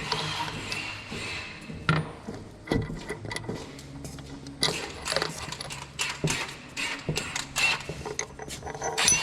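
Irregular metallic clinks and knocks of tools and metal parts being handled while a combine bearing assembly is worked on, over a faint steady low hum.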